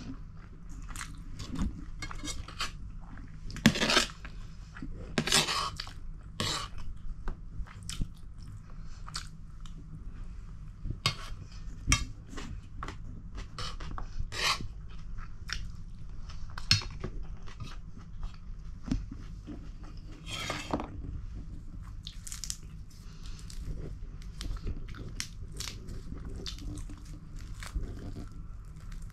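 Close-up chewing and crunching of food, with scattered mouth smacks and a metal spoon clinking and scraping on a steel plate.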